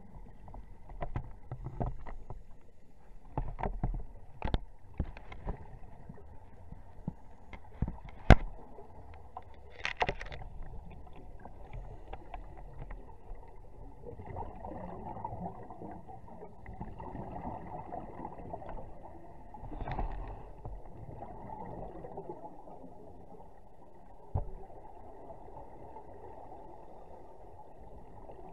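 Underwater sound picked up by a diver's camera: a muffled, steady water noise with scattered sharp clicks and knocks in the first ten seconds or so, the loudest about 8 seconds in. Brief rushes of bubbles come about 10 and 20 seconds in, and another knock about 24 seconds in.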